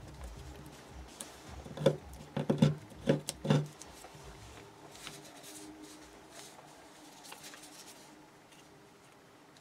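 Origami paper being handled and folded by fingers: a quick cluster of sharp paper crinkles and taps between about two and three and a half seconds in, then faint rustling.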